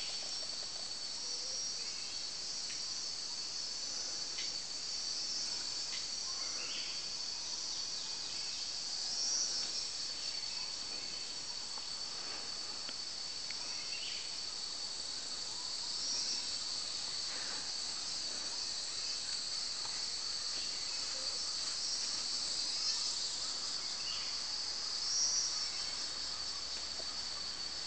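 Insect chorus: a steady, high-pitched drone that swells briefly a few times, with faint short chirps scattered through it.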